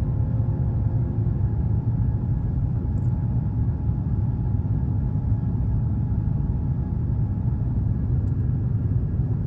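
Steady low rumble of a jet airliner heard from inside the passenger cabin: engine and airflow noise holding an even level, with no change.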